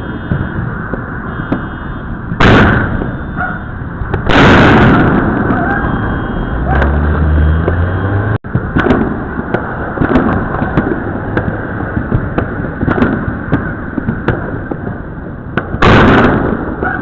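Illegal consumer fireworks going off all around: a steady crackle of many small pops and bangs, with three much louder booms, about two and a half seconds in, about four seconds in, and near the end.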